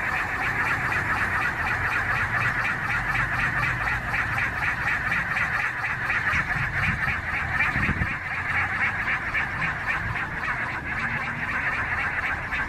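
A loud, steady buzzing drone made of rapid, even pulses.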